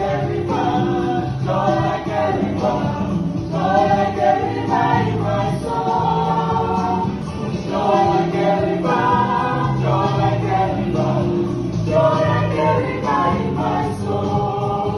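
Background music: choir-style vocal music with several voices singing over a steady accompaniment.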